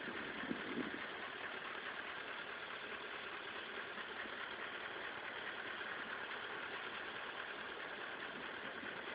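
A steady engine hum with no distinct events.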